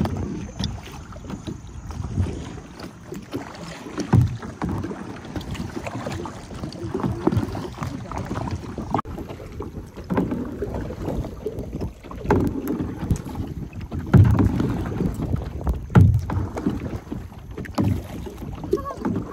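Kayak paddling on the sea: paddle blades splashing and water sloshing against the plastic hull in surges about every two seconds, with wind buffeting the microphone.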